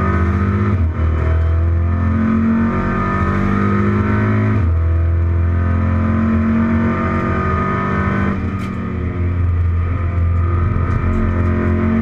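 Racing saloon car's engine heard from inside the cockpit under hard acceleration, the pitch climbing through the revs. It changes up a gear about halfway through and climbs again, then the note drops back and quietens briefly about two-thirds in.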